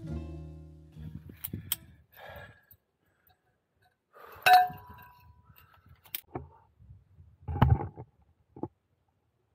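Background music fading out in the first second, then scattered metallic clinks and knocks. The loudest clink comes about halfway through and rings briefly: via ferrata climbing gear, carabiners against the steel safety cable, being handled.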